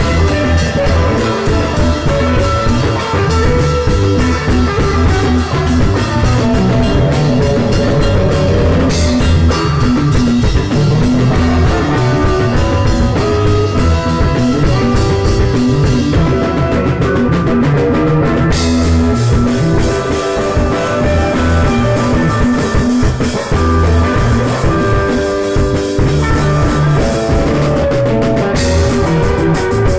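Rock band playing a song, with drum kit and guitar, loud and steady throughout.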